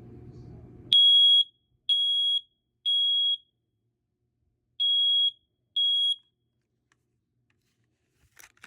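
Kidde i9040 smoke alarm sounding on test: high-pitched beeps of about half a second each in the temporal-three fire pattern, three a second apart, a pause, then two more before it stops.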